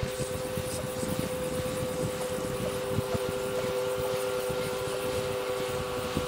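A boat motor running with a steady two-note hum, over an uneven low rumble.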